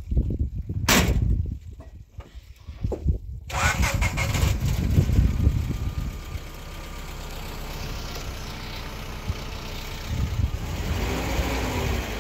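A vehicle engine starting about three and a half seconds in, then running steadily. Low knocks before it, with one sharp knock about a second in.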